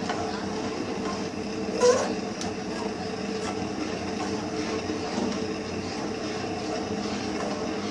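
Steel spoon stirring and scraping a thick ragi flour and jaggery batter in a stainless steel pan as it cooks, with a sharp metallic clink of spoon on pan about two seconds in.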